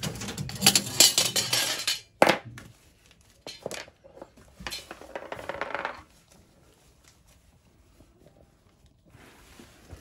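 Metal parts clinking and clattering as pieces are handled and refitted in a gas boiler's burner compartment. Rapid clinks for about two seconds, then one sharp knock, then a few scattered lighter clinks before it goes quiet about six seconds in.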